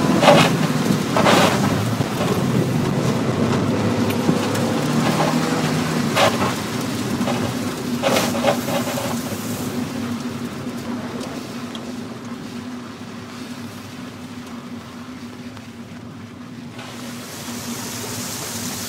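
Mazda Miata's four-cylinder engine running through an autocross run on a wet course, heard from inside the cabin, with surges of tyre spray hissing off the water in the first half. The engine settles to a quieter, steadier note as the car slows, and near the end a wash of water sprays up over the car as it drives through standing water.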